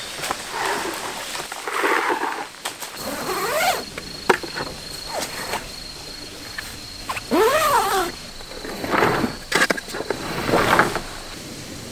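Small dog whining in a few rising-and-falling whimpers, the longest about halfway through, amid rustling of tent fabric being handled.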